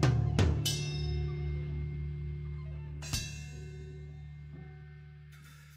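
Closing music ending: a few drum and cymbal hits at the start and one more about three seconds in, over a held low chord that slowly fades out.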